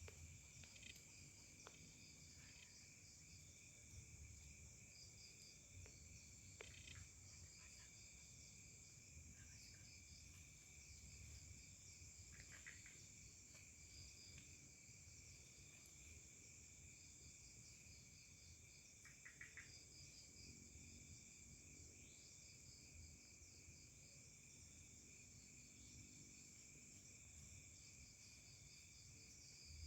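Faint forest insect chorus: steady high-pitched trilling with rapidly repeating pulsed chirps over it, and a few short chirps here and there.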